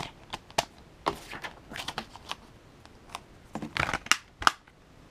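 Plastic Blu-ray case being handled and snapped shut: a series of sharp clicks and brief rattles of hard plastic, with a cluster of clicks late on and a loud click near the end.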